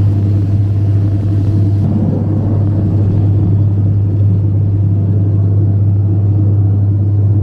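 Fishing boat's engine running steadily underway, a low, even drone.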